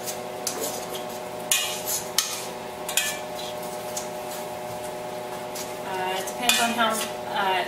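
Wire potato masher mashing soft cooked tomatoes into sauce in a stainless steel pan, with several sharp clinks of metal on the pan in the first three seconds, over a steady background hum.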